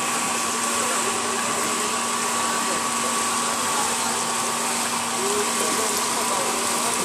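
Steady rushing noise with a constant low hum underneath, from the water park's pumps and water running through the pool and slides. It holds level throughout, with faint distant voices over it.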